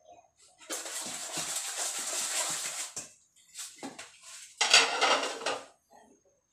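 Stainless steel bowl being washed at a kitchen sink: about two seconds of scrubbing and rinsing noise with metal clatter, then a louder spell about five seconds in.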